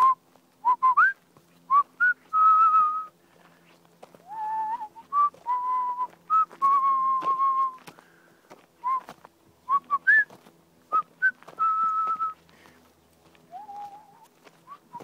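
A person whistling to call a horse: bursts of short rising chirps and longer held notes, repeated in groups with short pauses.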